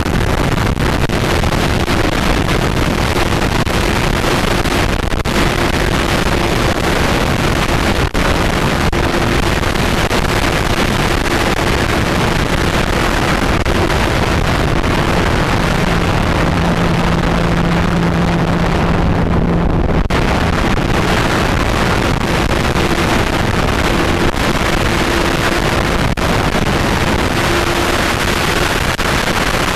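Steady loud wind rush over a camera's microphone carried through the air on an RC plane, with a faint steady hum that comes and goes, and a lower hum for a few seconds about halfway through.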